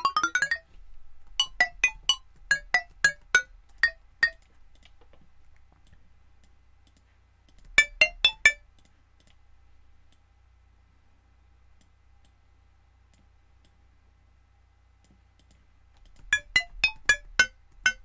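Bell-like percussive notes from a ZynAddSubFX PADsynth patch with sine overtones. They are played as quick runs of short, bright notes that ring only briefly, with a pause of several seconds in the middle.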